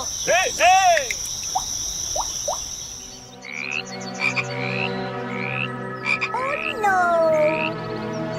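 Frogs croaking: a few loud, arching calls in the first second, then a dense chorus of repeated calls with short rising chirps about every 0.7 seconds. A steady high-pitched tone runs underneath and stops about three seconds in.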